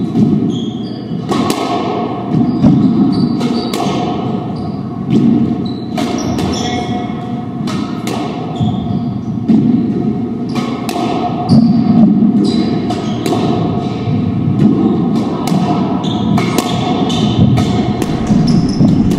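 Squash ball striking racquets and the court walls: a run of sharp, irregular knocks about once a second, with a steady hum underneath.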